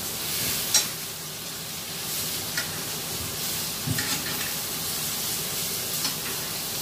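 Butter and steak fat sizzling in a hot cast-iron skillet while a bone-in ribeye is spoon-basted. A sharp clink of the metal spoon against the pan comes about a second in, and a few lighter clinks follow.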